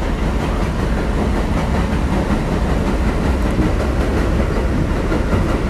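Inside a moving New York City Subway 6 train car: the steady low rumble and rattle of the car running along the rails.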